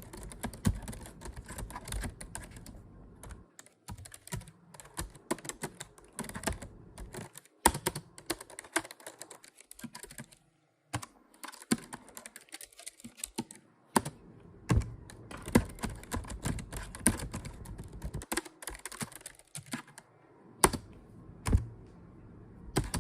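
Typing on a computer keyboard: irregular runs of quick, sharp keystroke clicks with short pauses between them.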